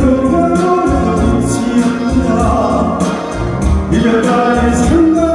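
A man singing a Korean trot song live into a microphone over a backing track with a steady beat.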